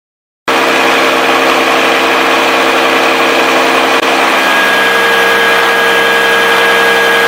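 Knuth UWF 4 universal milling machine running with a loud, steady mechanical hum that cuts in abruptly about half a second in. A higher steady whine joins about four and a half seconds in.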